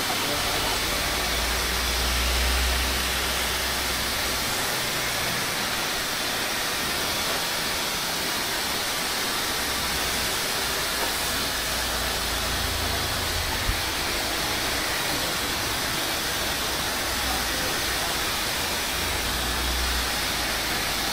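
Hand-held hair dryer blowing steadily on long hair, a loud even rush of air with low rumbles now and then as the airflow moves, and one short click about two-thirds of the way through.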